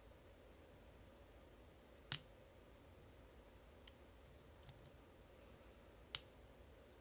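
A metal lock pick clicking against the pins inside a Master Lock Pro Series 931D padlock while it is being picked: two sharp clicks about four seconds apart, with a fainter tick or two between them.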